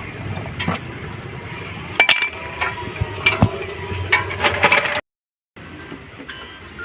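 Metal-on-metal clinks and knocks of hand tools and engine parts during engine dismantling, a quick run of sharp ringing strikes from about two seconds in, which cuts off suddenly.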